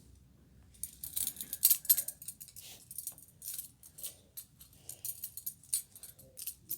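Metal clinking and jingling of a small handcuff key against steel handcuffs and their chain, fumbled behind the back while feeling for the keyhole. It is a quick, irregular run of light clinks that starts about a second in.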